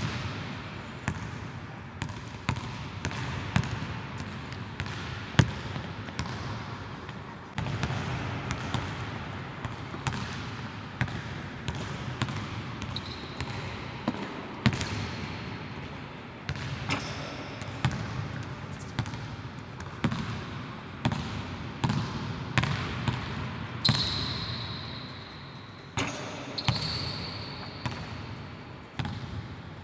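A basketball being dribbled on a hardwood court, a steady run of sharp bounces that echo in a large empty arena. There are a few short high squeaks from sneakers on the floor, the loudest about 24 seconds in.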